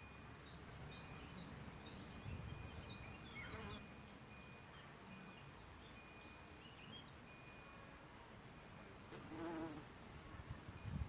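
A flying insect buzzing close past the microphone, loudest about nine seconds in, with a fainter buzz a few seconds earlier. Behind it is a faint outdoor background with small high chirps.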